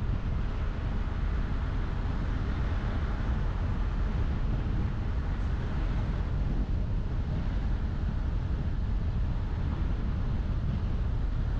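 A car driving: a steady low rumble of road and wind noise, with no distinct engine note.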